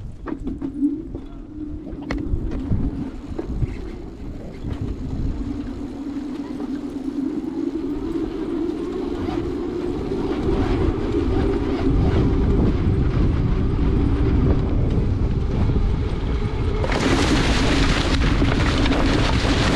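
Outrider Coyote electric 4WD ATV driving off-road: its electric motor gives a steady whine that rises a little in pitch about halfway through and settles back, over a low rumble that grows louder in the second half. A loud rushing noise joins about three seconds before the end.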